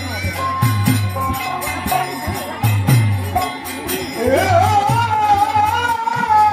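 Devotional kirtan music: regular drum beats with jingling small cymbals, and from about four seconds in a long held, wavering melodic line.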